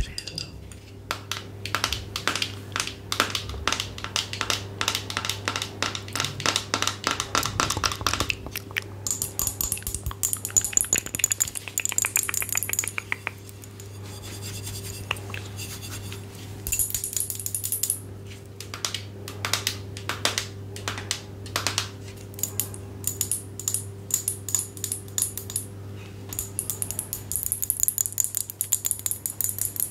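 Close-up ASMR tapping and scratching on hard objects: fast runs of small clicking taps, broken by stretches of brighter scratching.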